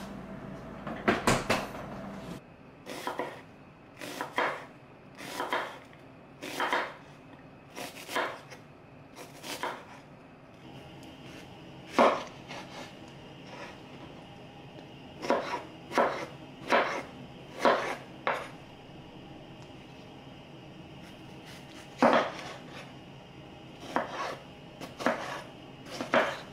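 A cleaver cutting through tomatoes onto a wooden cutting board: separate sharp knocks of the blade meeting the board, about one a second, in short runs with pauses between.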